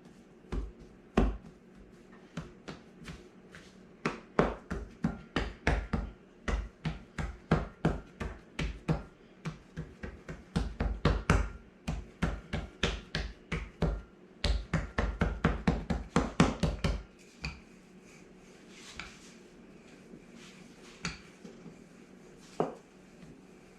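Hands patting and knocking cookie dough on a floured counter: a long run of quick pats, about two to four a second, that stops about three-quarters of the way through, followed by a few faint clicks.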